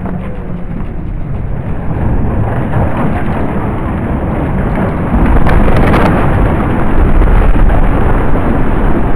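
Tall brick mill chimney toppling and crashing to the ground after its burning timber props give way: a low rumble that grows, then a much louder crash of brickwork hitting the ground about five seconds in that rumbles on to the end.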